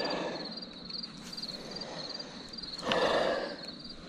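Crickets chirping steadily, a high, even chirp repeating a couple of times a second. A brief louder rustling noise comes about three seconds in.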